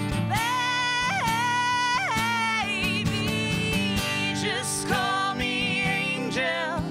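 Country song performed live: a woman singing the lead with a man singing along, over a strummed acoustic guitar.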